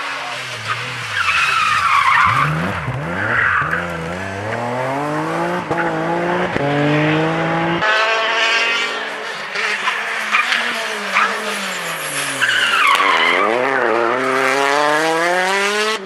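Rally cars driven hard through a corner, engines revving high, dropping sharply and climbing again through quick gear changes. Tyres squeal as the cars slide, twice, and there are a few sharp cracks.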